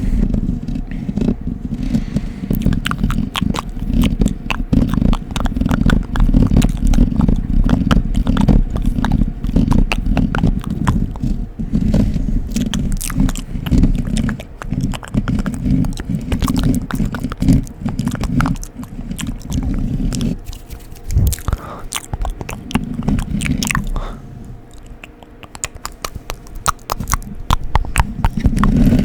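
Close-miked ASMR scratching and mouth sounds: dense, rapid clicks over a low rubbing noise, dropping quieter for a few seconds near the end.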